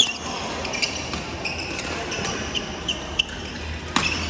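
Badminton rally: sharp hits of rackets on the shuttlecock, the loudest at the start and about four seconds in, with short squeaks of court shoes on the wooden floor between them.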